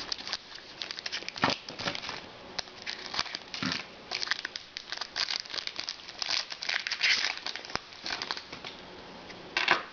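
Trading card pack wrapper crinkling and being torn open, an irregular run of crackles with a louder rustle near the end.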